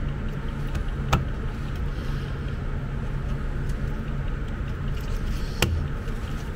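Two sharp clicks, about a second in and near the end, as a remote control's circuit board is handled and pressed into its plastic case, over a steady low hum.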